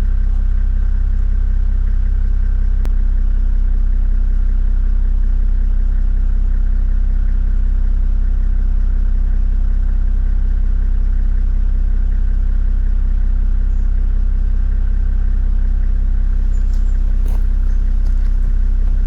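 Toyota Land Cruiser 70-series diesel engine running at steady revs: a low, even drone that holds its pitch throughout, with no revving.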